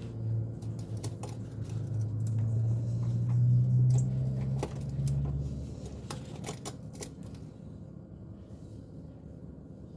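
Irregular sharp metal clicks and clatter of hand tools working under a car, over a low engine hum that grows louder, peaks about four seconds in and fades out about halfway through.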